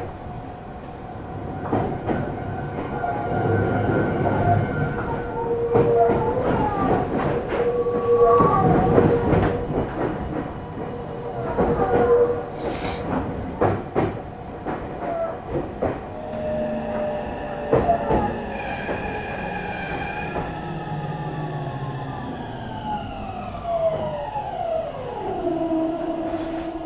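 Meitetsu 300-series electric train heard from inside the car: running noise with wheel clicks over rail joints and some wheel squeal. About two-thirds in, the traction motors' whine comes in several tones that fall steadily in pitch as the train brakes, slowing for a station.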